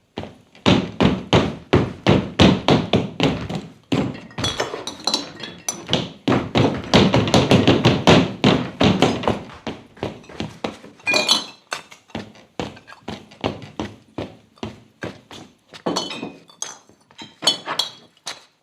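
Foley footsteps on a wooden staircase, a steady run of knocking steps about two to three a second, with small glass bottles clinking now and then.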